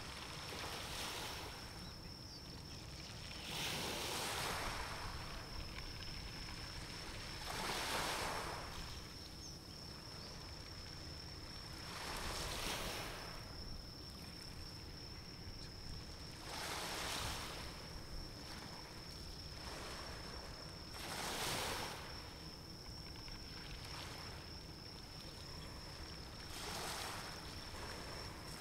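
Small waves washing in and falling back about every four to five seconds, over a low steady rumble and a thin, steady high-pitched whine.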